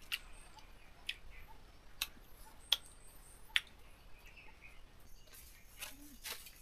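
Five sharp clicks at uneven intervals as something small is handled, then soft footsteps and rustling near the end.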